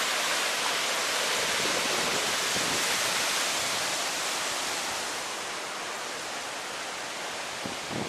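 Swollen Assunpink Creek floodwater rushing past in a steady hiss, easing a little about five seconds in. The creek is running at a record high after Hurricane Irene.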